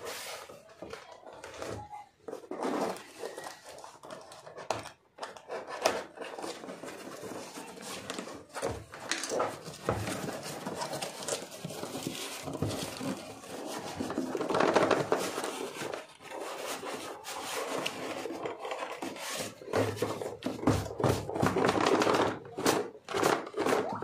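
Cardboard shipping carton being torn open and handled: rustling and tearing of cardboard and packing tape, with scrapes and knocks, loudest twice, about midway and again near the end.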